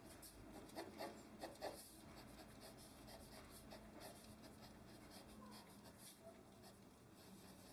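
Faint scratching of a pencil on drawing paper: a run of quick sketching strokes, two of them a little louder about one and two seconds in.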